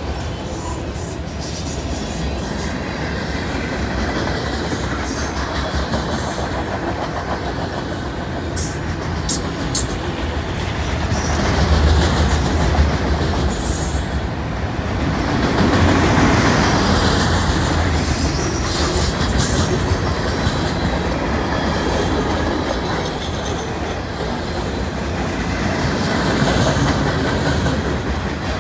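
Freight cars of a passing train rolling by at close range: a steady rumble and clatter of steel wheels on the rails, louder for a few seconds around the middle.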